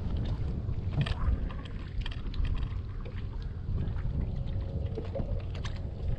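Strong wind buffeting the microphone with a gusting low rumble, with small knocks and splashes of water against a boat hull now and then.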